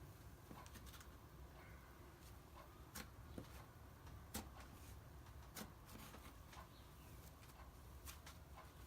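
Near silence, broken by faint, scattered small clicks, the clearest about three, four and a half and five and a half seconds in.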